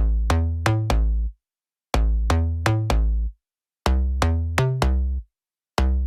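Background music: short phrases of plucked notes over a deep bass and drum-machine beat, broken by brief full silences between phrases.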